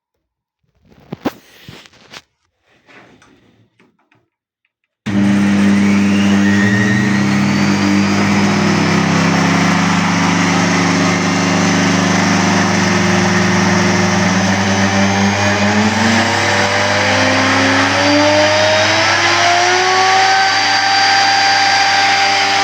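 A few handling clicks and knocks, then the Enkor Korvet 82 electric hand router switches on about five seconds in and runs loud and steady. Its whine climbs slowly in pitch over the next fifteen seconds.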